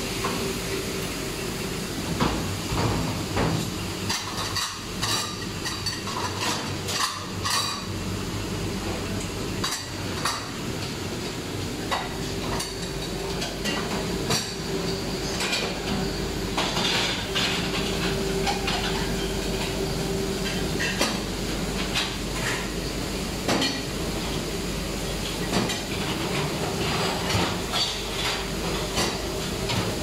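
Single-tank conveyor dishwasher running: a steady hum with a hiss of water spraying inside the machine, and frequent clanks of pots and pans knocking in their racks as the conveyor carries them through.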